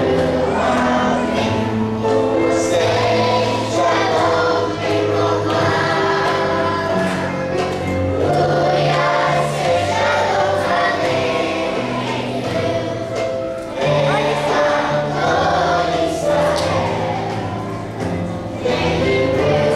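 A group of young children singing a song together over instrumental accompaniment with a bass line.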